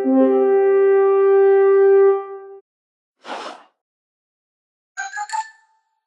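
iPhone alert tones played one after another: a held horn-like tone that stops about two and a half seconds in, then a short whoosh, then a quick run of three or four short chirpy notes.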